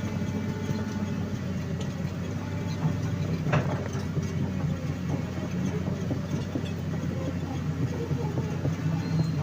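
Excavator's diesel engine running steadily while the machine travels on its steel tracks, tamping down loose road soil, with a sharp clank about three and a half seconds in.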